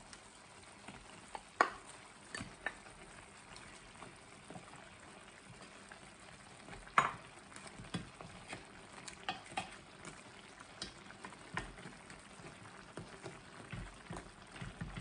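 Chicken curry simmering in a stainless steel pan, with a faint steady bubbling, while frozen spinach is stirred in with a wooden spoon that clicks and knocks against the pan. Two louder knocks come about one and a half seconds and seven seconds in.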